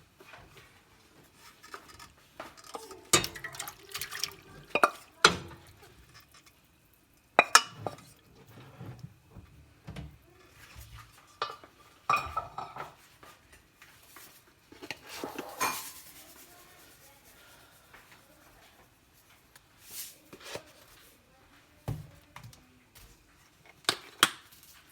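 Kitchen dishes, pots and utensils knocking and clattering, in scattered sharp knocks with quiet stretches between them.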